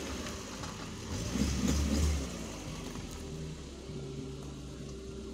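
A parked car's engine idling with a steady hum. A low rumble swells briefly about a second and a half in.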